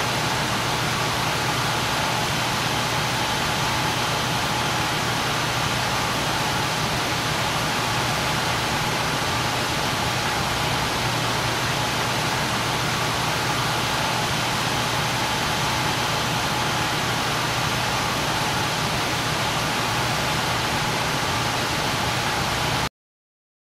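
Industrial ambience of a water processing facility: a constant, dense rush of noise with a low steady hum and a faint higher tone running through it, cutting off abruptly near the end.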